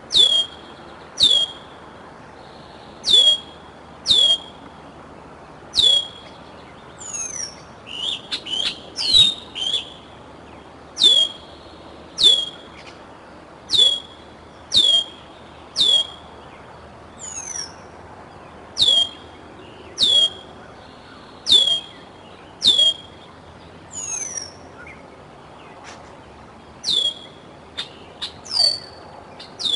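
Juvenile bald eagle giving repeated food-begging calls: sharp, high whistles that drop quickly in pitch, about one a second, with a quicker run of them about a third of the way in. A few fainter, higher slurred calls come in between.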